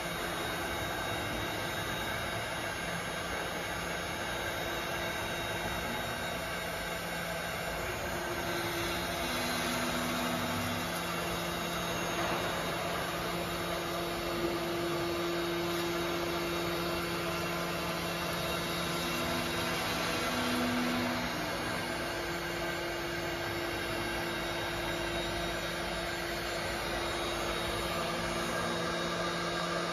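Large gantry CNC router carving a block of foam: the spindle and cutter run steadily with a whirring hum, with extra tones that come and go in the middle as the head moves.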